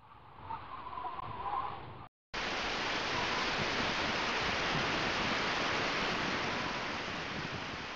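A steady, even rushing noise, like hiss or static, that starts abruptly after a short silent break about two seconds in. Before the break there is a fainter sound with a wavering tone.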